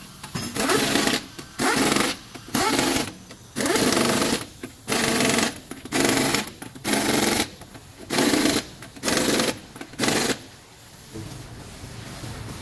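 Impact wrench run in about ten short bursts on the wheel's lug nuts, hammering as it drives them on. The bursts stop about ten seconds in.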